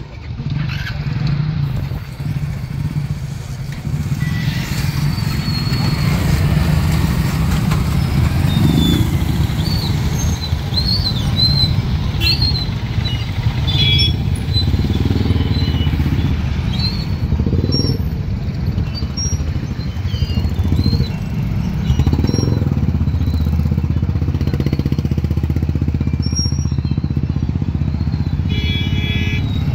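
Many motorcycles and scooters running together as they pull away and cross the railway tracks: a steady, loud drone of small engines, with short high chirps scattered through it.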